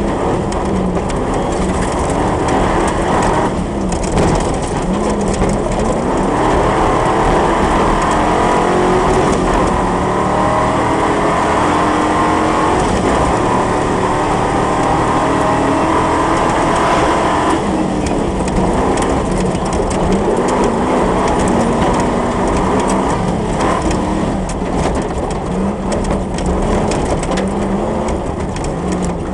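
Engine of a competition safari off-road racing vehicle, heard from inside the cab under hard driving on a loose quarry track. Its pitch rises and falls repeatedly as it accelerates and backs off, over steady gravel and tyre noise.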